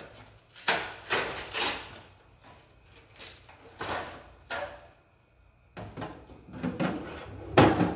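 Vending machine being restocked: a series of short sliding and knocking noises as trays and products are handled, the loudest one near the end.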